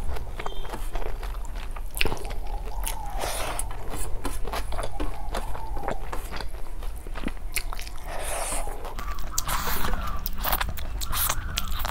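Close-miked eating: a person chewing and biting snail curry with rice, with wet mouth noises and many short sharp clicks.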